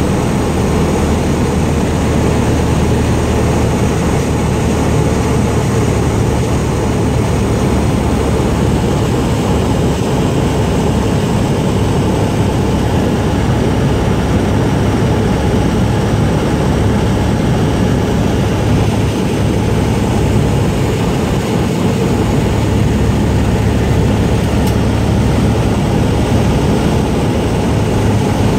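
Light propeller airplane's engine and propeller running steadily, with airflow noise, heard inside the cabin during the descent toward landing. A low hum sits under the rushing noise and holds steady throughout.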